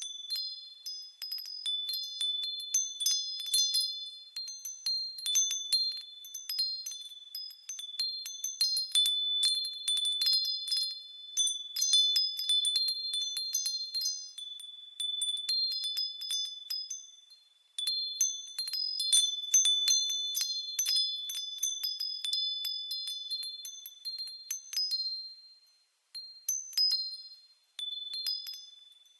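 Wind chimes ringing in irregular clusters of high, crisp tones that overlap and die away. The ringing fades out briefly a couple of times before the next clusters of strikes.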